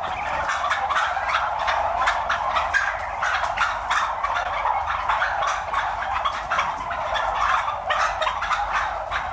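A large flock of domestic white turkeys gobbling all at once: a dense, unbroken chorus of many overlapping calls.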